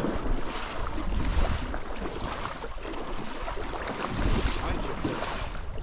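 Wind buffeting an action camera's microphone, a low rumble that rises and falls in uneven gusts.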